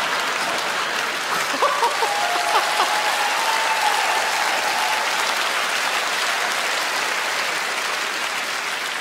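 Studio audience applauding steadily after a punchline, with a faint held whistle-like tone in the middle.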